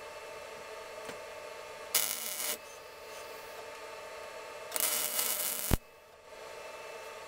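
MIG welder running two short weld bursts on a steel nut and bolt, the arc giving a loud hissing crackle: a half-second burst about two seconds in and a burst of about a second near the five-second mark that cuts off suddenly. A steady hum runs underneath between the bursts.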